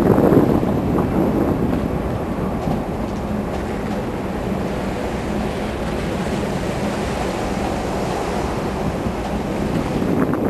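Wind buffeting the microphone over the rush of sea water along a cargo ship's hull as it rolls in a swell, with a steady low hum beneath. The rushing swells louder in the first second and again near the end.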